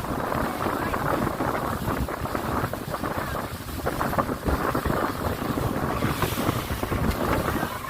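Speedboat underway at speed: wind buffeting the microphone over the rush of water along the hull.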